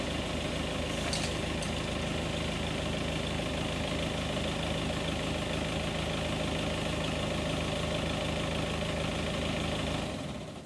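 Backhoe engine running steadily at idle, dying away near the end.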